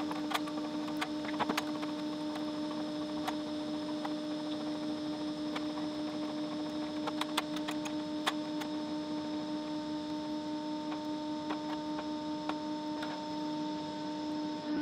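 Steady electrical hum from an electric heat-treating furnace, with scattered light clicks, more of them in the first half.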